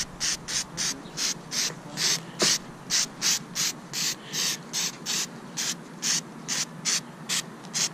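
Aerosol can of grease-and-wax remover sprayed in short squirts, a quick hiss about two to three times a second.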